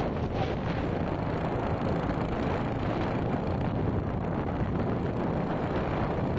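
Steady wind rush buffeting the microphone on a moving motorcycle, with the bike's running noise underneath.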